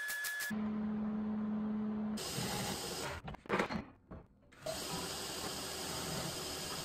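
Welding arc crackling in quick, even pops that stop about half a second in, followed by a steady low hum. After that comes a steady hiss, broken about three and a half seconds in by a short, loud clatter.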